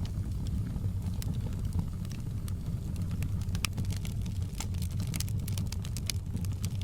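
Burning logs crackling: irregular sharp pops and snaps over a steady low rumble of the fire, the pops coming thicker after about four seconds.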